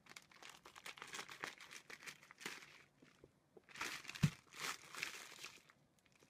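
Plastic bacon packaging crinkling and rustling as it is handled and opened, in irregular bursts, with a single dull thump about four seconds in.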